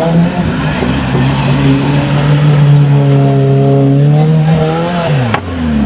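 Off-road competition buggy's engine held at high revs as it drives through muddy water and up a bank. About five seconds in the revs fall away, followed by a sharp knock.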